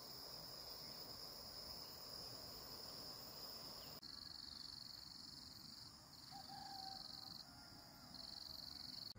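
Faint insects calling in the countryside: a steady high buzz that, about four seconds in, changes to on-off stretches of a second or two.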